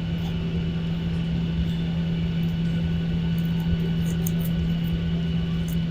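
Airliner cabin noise from the running engines while the aircraft taxis after landing: a steady hum with a constant low tone over a rumble, and a few faint clicks.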